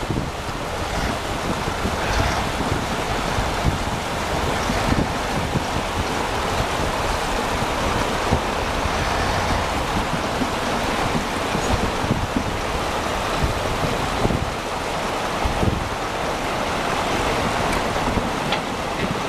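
Steady rushing wind noise on the microphone over the running of a MAN 8x8 off-road truck, its tyres rolling through wet slush and ice, with a few low knocks from bumps.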